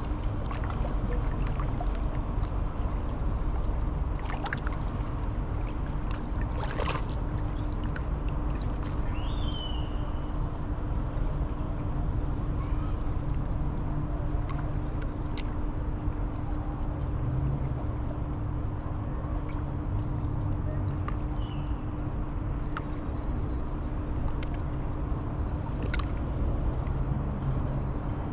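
River-bank outdoor ambience: a steady low rumble under a constant low hum, with scattered faint clicks and a few brief bird chirps, about a third of the way in and again later.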